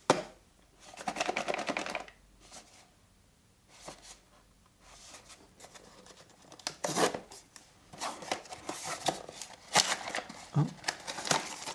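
A blind box and the bag inside it being opened by hand. There is a sharp click at the start, then irregular crinkling and tearing of the packaging through the second half.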